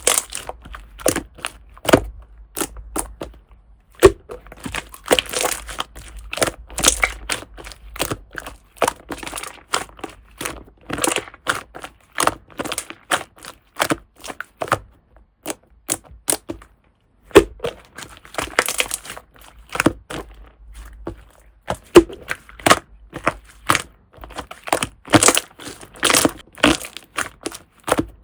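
Slime being worked by hand: a steady stream of sharp pops and clicks as air pockets burst, with crackly stretches when it is squeezed and pressed.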